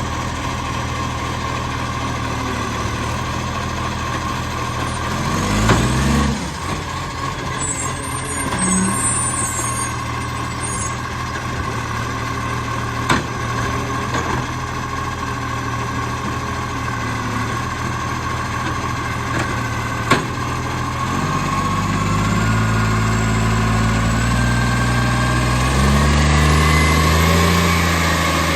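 Garbage truck's diesel engine running with an exhaust leak, idling steadily and then speeding up in steps over the last third with a rising whine. Two sharp clicks stand out partway through.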